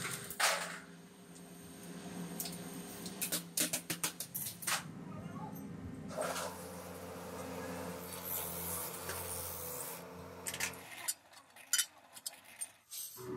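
Metal brake-shoe parts clattering and clinking as they tumble in a rotating drum, over a steady machine hum. The hum stops about eleven seconds in, leaving scattered light clicks.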